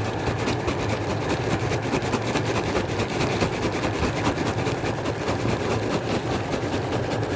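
Popcorn machine running, a steady motor hum under a dense, fine rattle.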